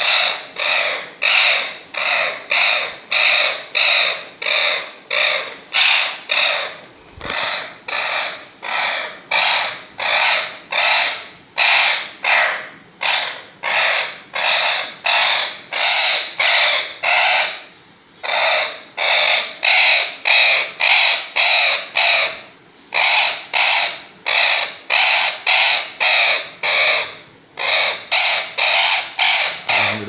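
A green parrot screeching harshly over and over, about two calls a second with a few short pauses, while restrained for a needle procedure to let out air trapped under the skin of its head. These are distress calls.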